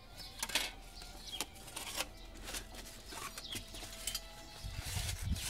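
Light clinks, scrapes and rustling as the thin steel plates of a folding Lixada V camp stove are handled and slid into a fabric pouch, with a low rumble of handling or wind near the end.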